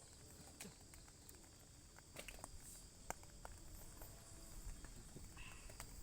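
Quiet forest ambience: a faint steady high insect drone, with a few scattered light clicks and taps.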